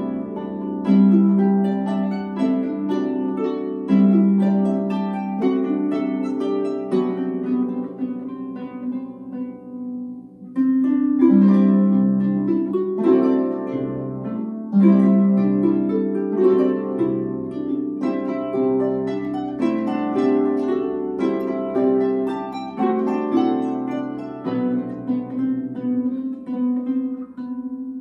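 Two Celtic harps played as a duet, plucked notes ringing together in a steady stream. About ten seconds in the music thins and softens briefly, then both come back in louder.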